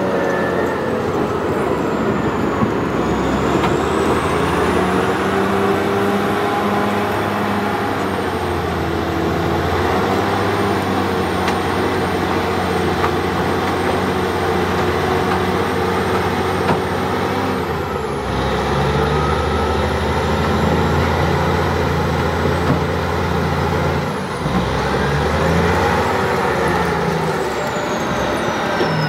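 Clark Michigan 475B wheel loader's big diesel engine running hard under load as the loader pushes its bucket into a gravel pile and lifts it. The engine note changes twice, around 18 and 24 seconds in, and a thin high whine rises and falls above it.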